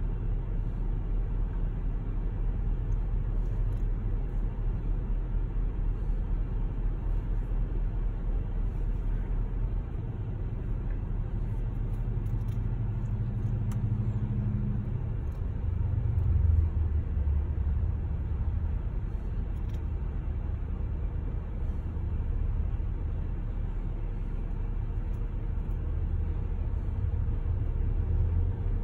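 Low, steady rumble of a car running, heard from inside its cabin, with other vehicles passing close by; the rumble swells briefly about halfway through.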